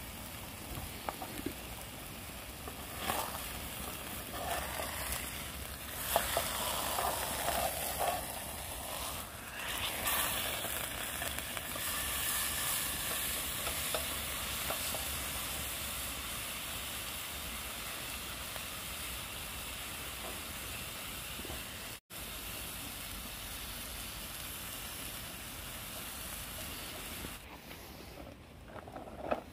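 Seasoned steak sizzling steadily in a frying pan over a small wood stove, with a few knocks and scrapes as it is pressed down with a spoon in the first half. The sizzle drops out for an instant about two-thirds of the way through.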